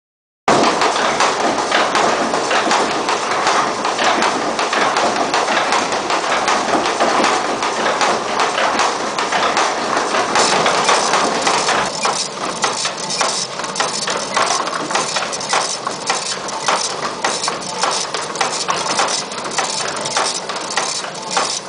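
Working windmill's grain-grinding machinery running: a steady rumble crowded with rapid wooden knocking and clattering, the knocks sharper and more distinct in the second half. It starts suddenly about half a second in.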